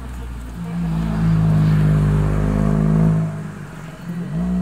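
Music over outdoor loudspeakers: a long, loud low note held steady for about two and a half seconds, starting about half a second in.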